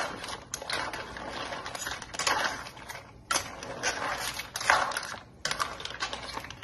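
Clams in their shells clattering against each other and a frying pan as a metal spoon stirs them, with clinks and scrapes in repeated strokes about once a second.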